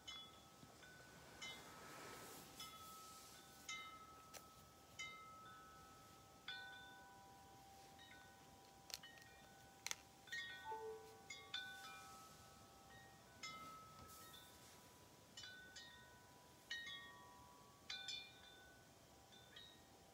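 Wind chime ringing faintly, its notes struck at irregular intervals and each ringing on, with several different pitches sounding and overlapping.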